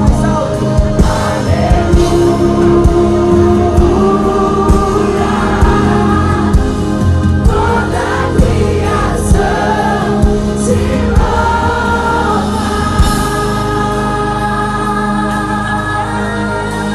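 Live gospel worship band with several voices singing together over a band with a steady drum beat. About 13 seconds in, the bass and drums fall away, leaving the sung voices.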